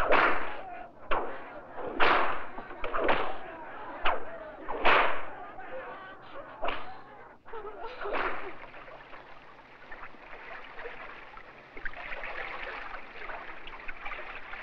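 Whip cracks, roughly one a second, each with a short echoing tail. After about eight seconds they give way to a softer, steady wash of sound.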